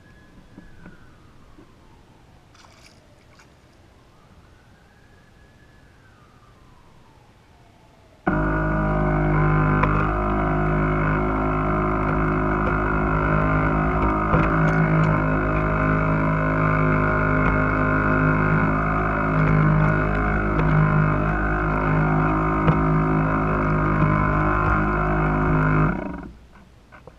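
Background music of sustained, layered chords cuts in suddenly about eight seconds in, holds steady, and stops abruptly near the end. Before it there is only a faint wailing tone that slowly rises and falls twice.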